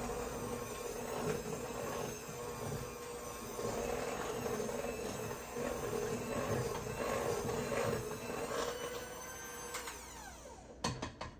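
Electric hand mixer running steadily, its beaters whipping cream cheese frosting thickened with powdered sugar in a stainless steel bowl. About ten seconds in it is switched off and its hum falls in pitch as the motor winds down, followed by a few sharp clicks.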